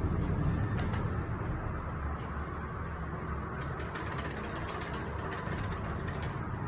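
Schindler elevator heard from inside the cab: a steady low rumble from the machinery, joined from about three and a half seconds in by a fast, fine mechanical ticking and rattling that stops shortly before the end.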